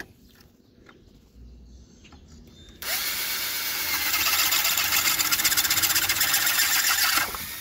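Corded electric drill boring an axle hole through a plastic milk crate. It starts about three seconds in, runs steadily for about four and a half seconds, and stops near the end. Small handling knocks come before it.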